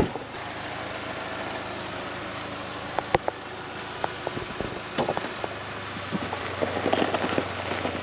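Chevy Colorado's 2.7-litre turbocharged four-cylinder idling steadily, with a loud thud at the very start like a door shutting and a few scattered light clicks and crunches later on.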